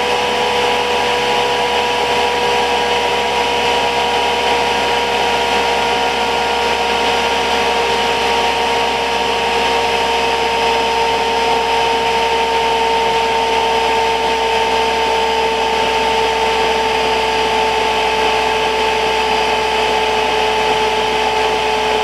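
Chinese diesel air heater running, its blower fan giving a steady whine that slowly sinks in pitch as the fan winds down from about 4250 to 3800 rpm while the heater throttles back its fuel.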